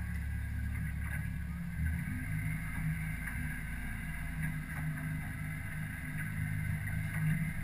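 Boat's outboard motor running at idle, a steady low hum that shifts in tone about two seconds in.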